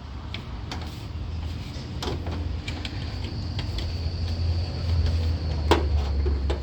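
Scattered clicks and knocks from a car's hood latch being worked and the hood opened, the sharpest knock near the end, over a low steady rumble.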